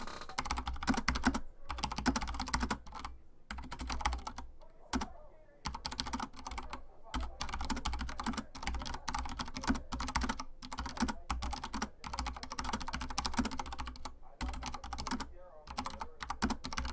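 Fast typing on a Corsair Strafe mechanical keyboard: rapid key clicks in runs, broken by several short pauses.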